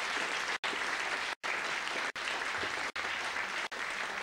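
Audience applauding steadily, the sound cutting out for an instant about once a second.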